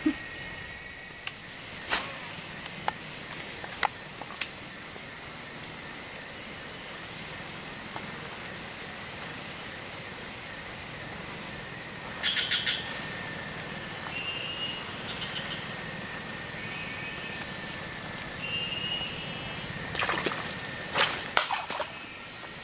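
Forest ambience: a steady high-pitched insect drone, with short bird calls in the middle and a few sharp clicks and knocks, clustered near the end.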